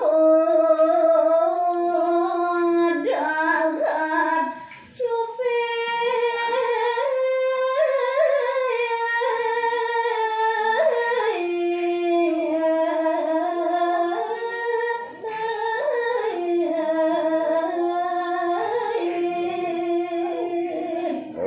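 A woman singing a Balinese geguritan verse in the sinom metre, solo, in a slow melismatic line of long held notes that slide and step from one pitch to the next. There are brief pauses for breath about five seconds in and again near the middle.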